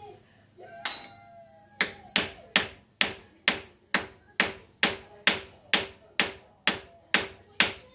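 Hammer lightly tapping a threaded shift-knob insert into a drilled billiard ball (an 8 ball), set in epoxy: one louder knock about a second in, then steady, evenly spaced taps, about two and a half a second, each ringing briefly.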